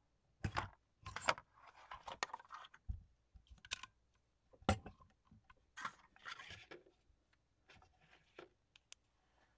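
A long-arm Crop-A-Dile hole punch clicking and snapping as it punches through layered kraft file-folder card, with a few sharp clicks among stretches of card and paper rustling as the pieces are handled.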